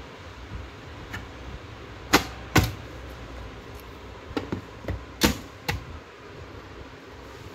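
Handling noise from a Hikvision DVR being turned over and set down on its cardboard box: a series of sharp knocks and taps, two loud ones about two seconds in and a cluster of four more toward the end.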